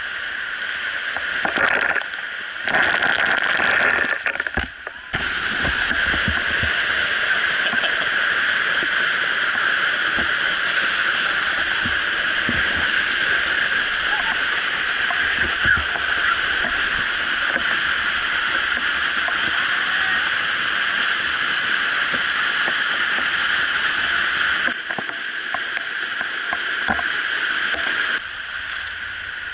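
Steady rushing hiss of a waterfall's falling water, cutting abruptly in level a few times between shots.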